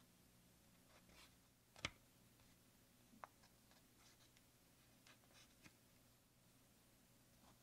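Faint close-up scratching of a felt-tip marker drawing tick marks on a paper checklist, with light handling of the paper sheet and one sharper tap about two seconds in.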